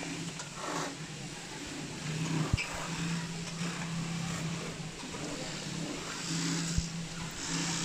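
Industrial sewing machines running in a large workshop: a steady motor hum that starts and stops in stretches as seams are sewn, over general machine-room noise, with two sharp knocks a few seconds apart.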